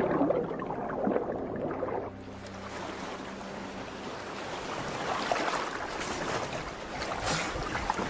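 Soundtrack music breaks off about two seconds in, giving way to a steady wash of wind and water noise, as out on a boat at sea, slowly growing louder.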